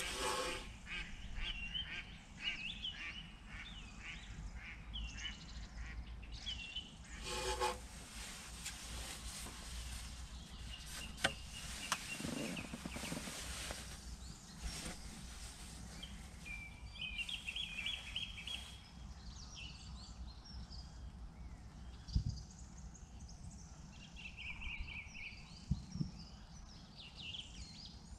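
Small birds chirping in runs of short, quick notes, with a single waterfowl honk about seven and a half seconds in, over a low steady rumble.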